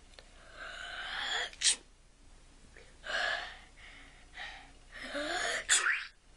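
A person making a run of gross, sneeze-like vocal noises: breathy build-ups twice ending in a sharp burst, with shorter bursts between.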